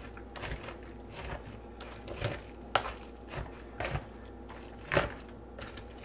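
Hand-held food chopper jabbed down into moist cornbread dressing mix in a plastic bowl, breaking up the cornbread and bread: a run of irregular soft thumps and crunches, about one or two a second.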